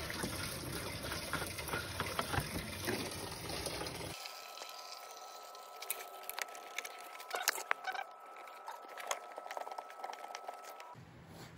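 Engine coolant pouring from a disconnected bottom radiator hose and splashing into a catch tray as the cooling system drains. About four seconds in it drops to a quieter stretch of scattered drips and sharp ticks.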